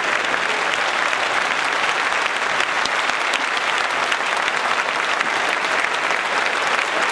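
Large concert-hall audience applauding, a dense, steady clapping.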